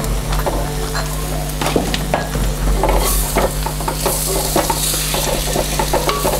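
A wooden spatula stirs and scrapes sliced tomato into fried onion masala in a clay pot, knocking against the pot's sides while the masala sizzles. The sizzle grows louder about three seconds in as the tomato is worked into the hot oil.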